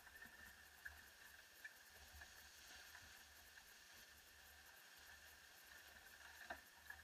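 Near silence aboard a sailing yacht under way: a faint steady hiss of wind and water, with a few light clicks.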